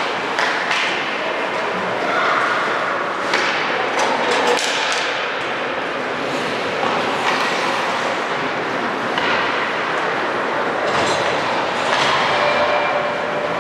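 Ice hockey play in an arena: skates scraping the ice, sticks and puck clacking, and thuds against the boards over a steady rink din.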